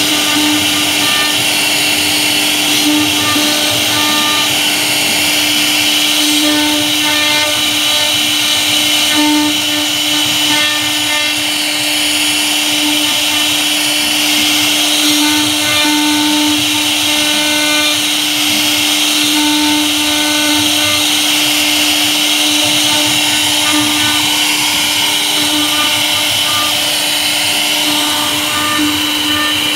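CNC router spindle running steadily with a constant tone while its V-bit cuts a carved pattern into a wooden board.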